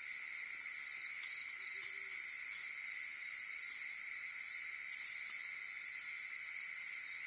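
Steady night-time insect chorus, several shrill unbroken trills layered at different pitches, the highest one pulsing unevenly. A few faint short chirps sound about a second in.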